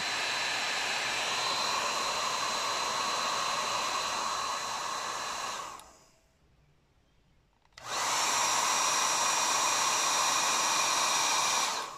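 A 1200-watt handheld hair dryer runs on its low setting with a steady whine. About six seconds in it is switched off and winds down. After about a second and a half of quiet it is switched back on at high, louder and with a higher whine, and it is shut off again just before the end.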